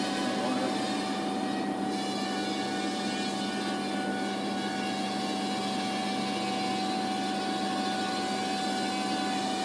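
The six brushed motors and propellers of a Super Mini X6 130 mm micro hexacopter in flight: a steady buzzing whine that holds an even pitch.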